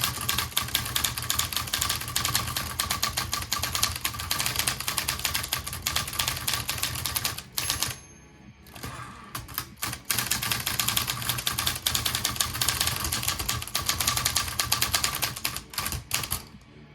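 Olivetti Lettera 22 manual portable typewriter being typed on at a steady fast pace, a quick stream of type-bar clacks, with a short break a little past halfway before the typing resumes.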